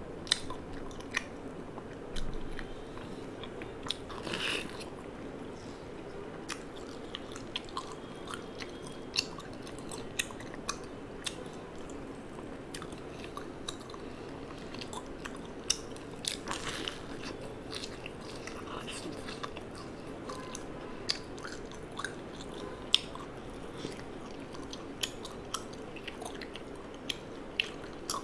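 Close-miked chewing and biting of food, with many short sharp clicks and crackles scattered irregularly over a steady background hiss.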